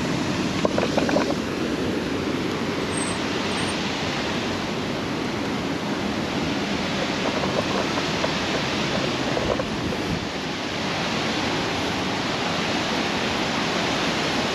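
Steady rush of water tumbling over the rock ledges of a man-made tiered waterfall.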